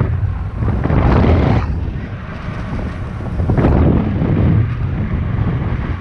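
Airflow of paragliding flight rushing over the microphone: loud wind noise that swells and eases in gusts, strongest about a second in and again near the end.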